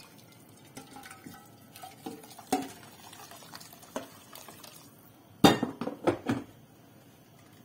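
A spoon scraping and tapping against a non-stick frying pan as tomato sauce is scraped out into a pot of soup: scattered light clicks, then a cluster of louder knocks about five and a half seconds in.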